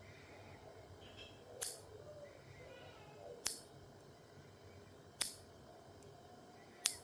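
Nail clippers snipping through nails: four sharp clicks, one about every second and a half to two seconds.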